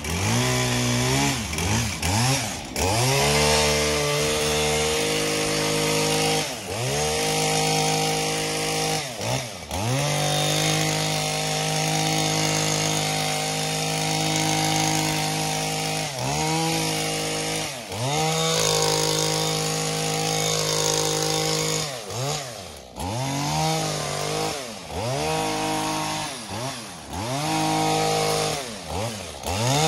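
Power hedge trimmer running at high speed, its motor note dropping and picking up again about a dozen times as the trigger is released and squeezed between cuts through shrub growth.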